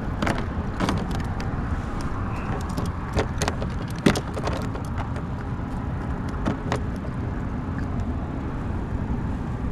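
A steady low rumble of road traffic, with scattered sharp clicks and knocks, the loudest about four seconds in, as fishing tackle and a just-caught fish are handled in a kayak.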